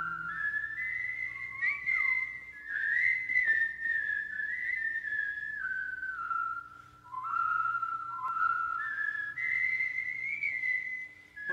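Background music: a whistled melody that glides and steps up and down, over a faint steady low drone.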